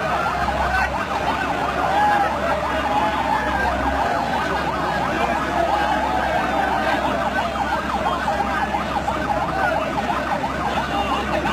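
Loud, dense clamor of a large crowd, many voices shouting and calling over one another, with no single voice standing out.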